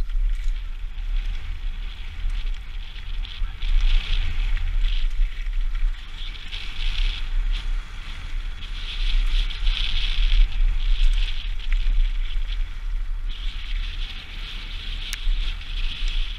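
Wind buffeting a helmet-mounted camera's microphone on a fast mountain-bike descent, under the hiss and crackle of knobbly tyres rolling over a gravel and dirt trail, swelling and fading every second or two. There are a few sharp clicks from the bike.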